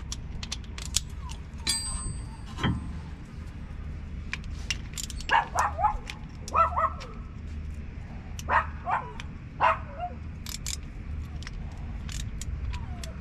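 A dog barks in four short groups between about five and ten seconds in. Scattered metallic clicks of a socket ratchet being worked on a rear brake caliper run under the barks.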